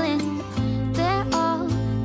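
Background music: a melody over a steady sustained bass line.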